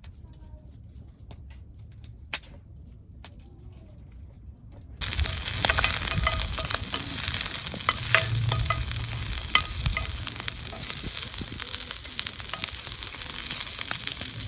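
Food laid on a hot cooking surface over a campfire starts sizzling suddenly about five seconds in. It goes on as a loud, steady sizzle with scattered spits and pops. Before that there are only a few faint clicks.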